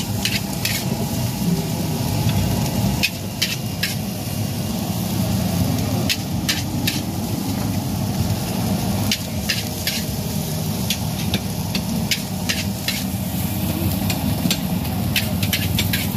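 Metal spatula clanking and scraping against a large steel wok as fried rice is tossed and stir-fried. There are about twenty sharp, irregular clacks, often in twos and threes, over a steady low rush of frying.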